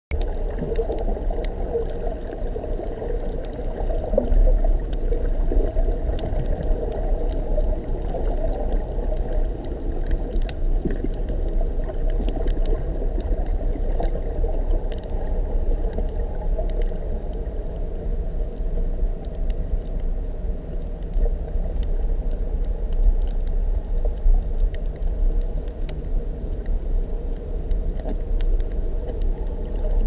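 Muffled underwater rumble as picked up by a submerged camera, steady and low, with faint scattered clicks throughout.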